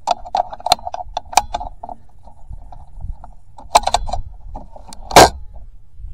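Clicks, knocks and rattles of an air rifle and gear being carried and handled, with one loud thump about five seconds in.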